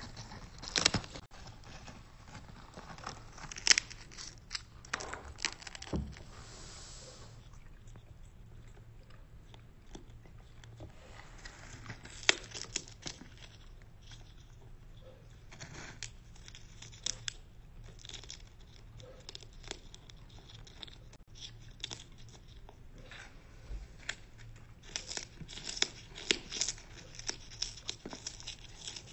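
Sulphur-crested cockatoo biting and crunching popcorn with its beak: irregular clusters of small crackling crunches, with the paper coffee filter holding the popcorn crinkling.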